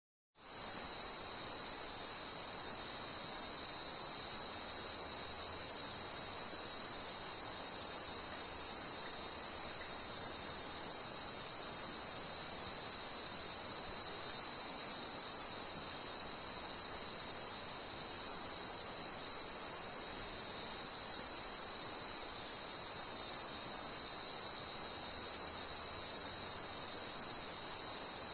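A chorus of night insects calling: a steady, unbroken high trill with a still higher, pulsing layer that swells and fades in groups. It starts abruptly just after a moment of silence.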